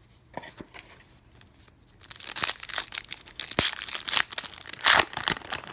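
Crinkling and tearing of a baseball-card pack wrapper as a new pack is ripped open and handled, starting about two seconds in after a few light clicks.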